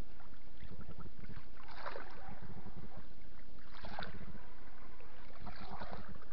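Water sloshing and splashing in three short surges about two seconds apart, over a steady low rumble.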